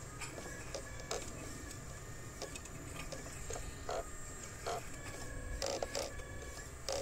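Radio-controlled scale hydraulic excavator working: a faint steady whine of its small pump motor with irregular short clicks and scrapes as the arm swings and the bucket moves.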